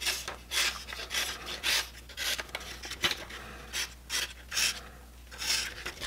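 Paper being sliced by the M390 steel blade of an Arcform Theory folding knife: repeated short, scratchy slicing strokes, about two a second, as the edge cuts through a hanging sheet of printer paper.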